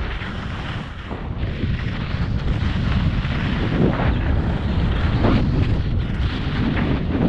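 Wind rushing over the microphone of a camera carried downhill at speed, swelling over the first few seconds and then staying loud, with a few brief scrapes.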